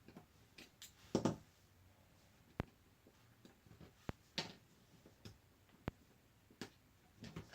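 Small irregular clicks and brief light scrapes of a precision screwdriver working the tiny screws on the phone's frame, with a slightly longer scraping cluster about a second in and another past the middle.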